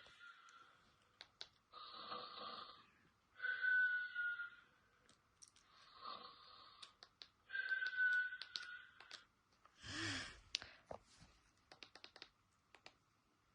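Repeated snoring, about five breaths, several with a thin falling whistle on them, then a short louder snort about ten seconds in and a few light clicks.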